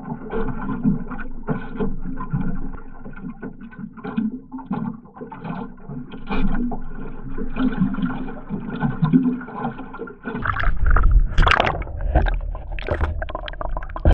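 Water slapping and gurgling against a small boat's hull in irregular splashes. From about ten seconds in it turns louder, with heavy splashing and a deep rumble close to the microphone.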